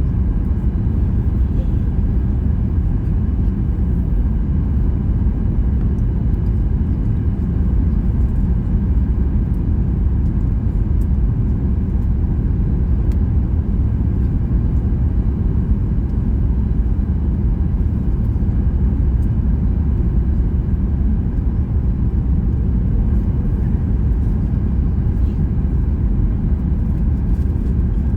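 Steady low rumble of cabin noise inside a Boeing 737 MAX 8 airliner, unchanging throughout.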